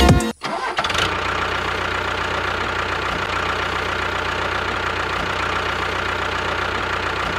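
An engine starting about half a second in, then running steadily at idle.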